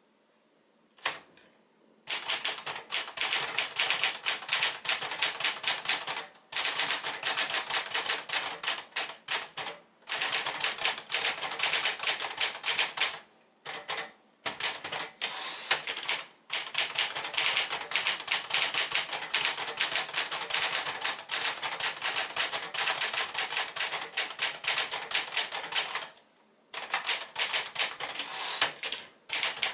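Sears Citation manual portable typewriter, a rebadged Smith-Corona Galaxie, being typed on: a single click about a second in, then rapid runs of keystrikes, each run lasting a few seconds, with brief pauses between them.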